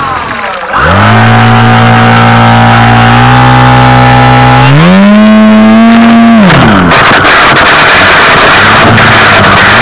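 Electric motor and propeller of a Tidewater RC seaplane, heard close up. The throttle is cut almost to nothing at the start, comes back to a steady pitch, rises sharply about five seconds in and drops away after six. After that a hiss of the hull sliding over snow is heard, with short throttle blips.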